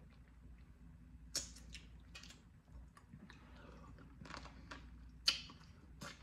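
Faint mouth sounds of someone eating boiled blue crab: chewing, sucking and lip smacks, with a handful of sharp clicks, the loudest about five seconds in.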